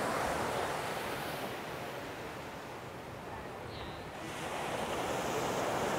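Sea waves washing onto the beach: the surf eases off in the middle and builds again with the next wave.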